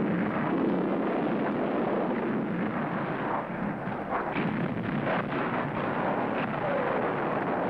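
Continuous battle noise of gunfire and explosions: anti-aircraft guns firing and bombs bursting, with several sharp reports in the middle and a falling whistle near the end.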